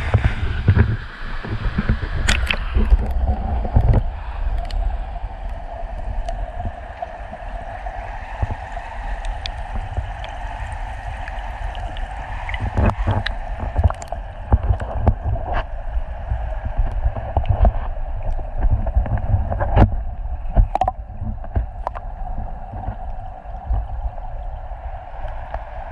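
Stream water heard through a GoPro's underwater housing: a muffled, rumbling flow with occasional sharp clicks and knocks. The higher sounds drop away about three seconds in as the camera goes under.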